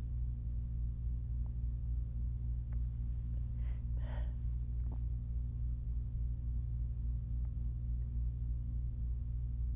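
A person's faint, short breath in two parts about four seconds in, with a few soft clicks, over a steady low hum.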